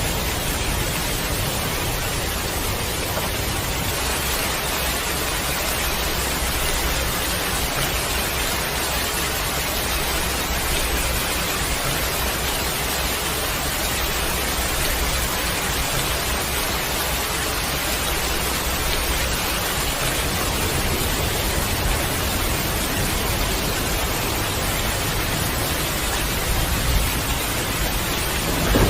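Heavy rain falling steadily, an even hiss of countless drops. Near the end a low rumble of thunder begins.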